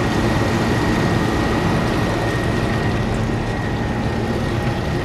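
Evaporative (swamp) cooler running steadily, its belt-driven blower turning with a low hum and a thin steady whine over a rushing noise. The blower bearings have just been greased to cure a noise and vibration.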